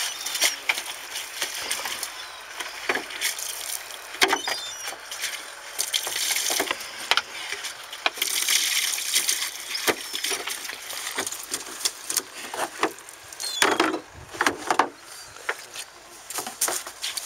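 Irregular knocks and clatter of fish and blue plastic fish crates being handled during sorting, over a steady background hiss.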